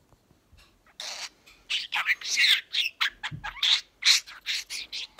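Budgerigar chattering: a fast, unbroken string of high chirps, squawks and warbled notes, starting about a second in.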